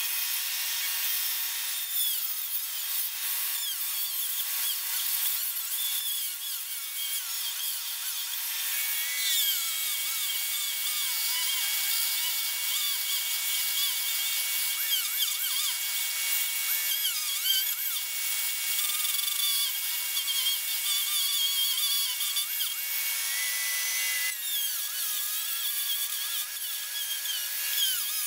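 Handheld rotary tool with a diamond cutoff wheel cutting into wood, a steady high whine whose pitch wavers and dips as the wheel bites into the frame.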